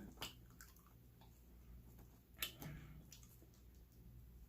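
Near silence with a few faint mouth clicks from quiet chewing, one a little louder about two and a half seconds in.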